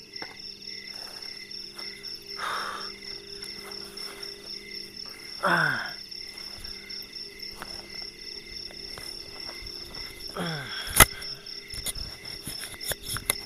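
Night crickets and other insects chirring steadily in several high, even tones. Over them come a brief rustle, two short falling pitched sounds a few seconds apart, and a single sharp click near the end, the loudest moment.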